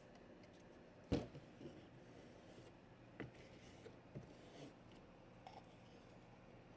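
Faint handling noises: a single sharp knock about a second in, then a few light clicks and scrapes, as body filler and tools are handled.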